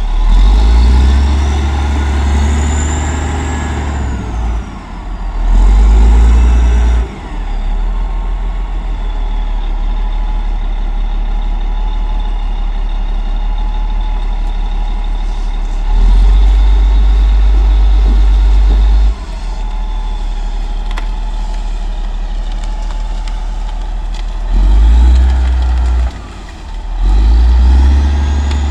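Diesel engine of heavy road-building machinery running steadily, surging louder for a few seconds at a time several times as it takes load. A whine rises and falls near the start and again near the end.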